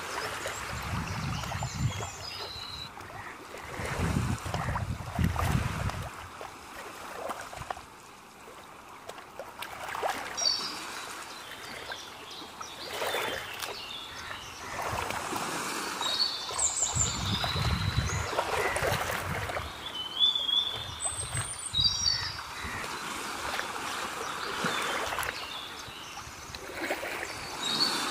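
Small waves lapping and washing against the rocks at a river's edge, rising and falling in surges every few seconds, with gusts of wind on the microphone now and then. Short bird chirps come through several times.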